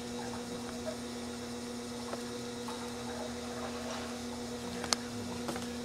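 Steady low electrical hum, with a few faint clicks and one sharp tick near the end.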